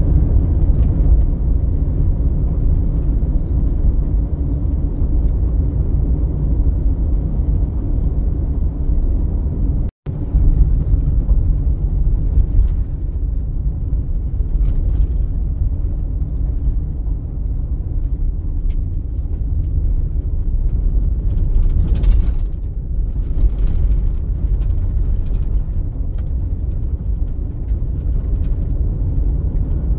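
Steady low rumble of a vehicle driving on a gravel and dirt road, heard from inside the cab: tyre and road noise with the engine beneath it. The sound drops out for an instant about ten seconds in.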